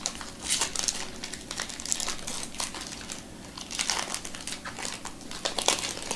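Foil wrapper of a Topps Chrome baseball card pack crinkling in irregular bursts as it is handled and opened by hand.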